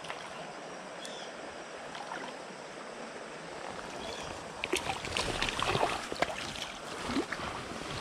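Creek water running steadily, then from about halfway a burst of irregular splashing as a hooked brown trout is scooped into a landing net.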